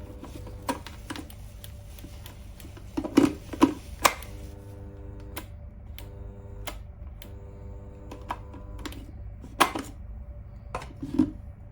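Irregular clicks and knocks, louder in a short cluster about three seconds in and again near the end, over a steady low hum.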